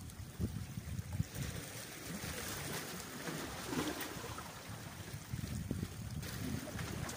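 Wind buffeting the microphone, with small waves washing against the rocks of a breakwater.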